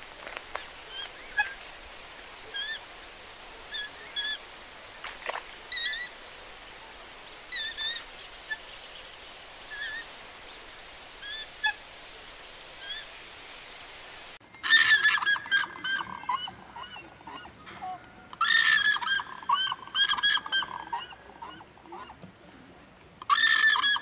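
Waterbird calls. For the first half, short sparse calls every second or two over a steady hiss, with Eurasian coots in view. About halfway through it cuts abruptly to much louder, crowded bird calls in three bursts.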